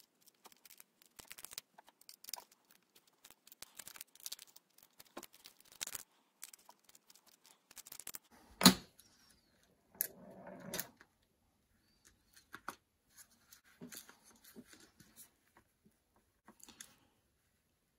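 A T6 Torx precision screwdriver clicking and scraping as it backs small screws out of a Google Nest Mini's plastic housing, with light plastic ticks as the parts are handled. About halfway through there is one sharp knock, the loudest sound, followed by a short scraping.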